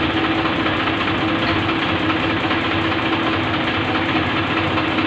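An engine running steadily at idle, a continuous mechanical drone with one steady hum through it.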